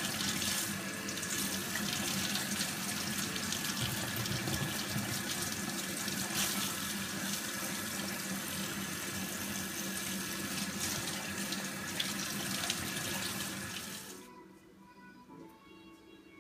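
Kitchen faucet running into a stainless sink as a prickly pear cactus pad is rinsed under the stream. The water noise cuts off about fourteen seconds in, leaving faint room tone.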